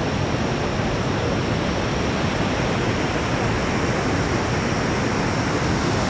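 Niagara Falls: a steady, even rush of falling water.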